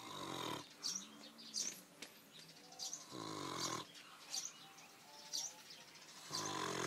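A sleeping dog snoring: three rasping snores about three seconds apart, with faint short high chirps between them.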